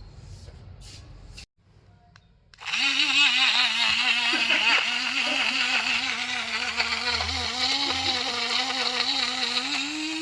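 Rechargeable mini grinder's small electric motor switching on about two and a half seconds in and running with a steady whine that wavers slightly in pitch.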